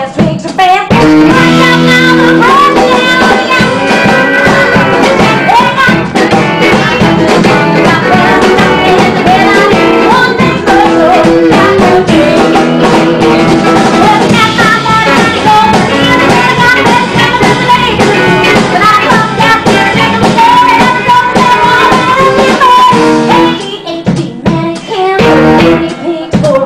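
Live band playing a bluesy song with guitar and drum kit, a woman singing lead into a microphone over it.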